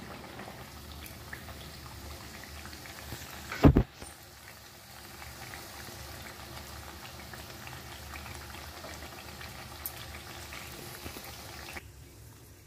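Mathri dough discs deep-frying in hot oil in a steel kadai: a steady bubbling sizzle with faint crackles. One loud knock comes nearly four seconds in. The sizzle drops away near the end.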